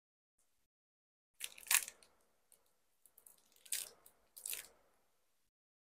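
Small clear plastic packet crinkling and tearing as it is pulled open by hand, in three main crackly bursts: about a second and a half in, near four seconds and about a second later, with light crackles between.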